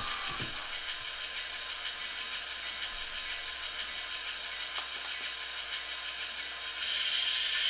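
Diesel engine sound from an HO-scale model locomotive's Tsunami sound decoder, played through its small onboard speaker: a steady engine drone that gets louder about seven seconds in.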